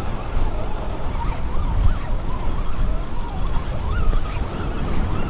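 Wind buffeting the microphone in a steady, uneven low rumble, with faint high tones wavering up and down over it.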